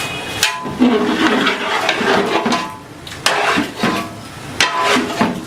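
A metal spatula clanging and scraping against a metal cooking pan as food is mixed, with a few sharp ringing strikes among the scraping.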